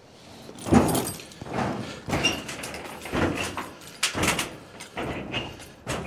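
Footsteps on ribbed metal roof sheeting: a thud with a short metallic rattle about once a second, six or so in all, some with a brief high ping from the sheet.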